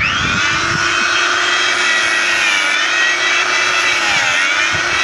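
Electric chainsaw-chain sharpener's motor and grinding wheel switching on and whining up to speed, then running steadily. Its pitch sags briefly twice as the wheel is pressed into a chain tooth.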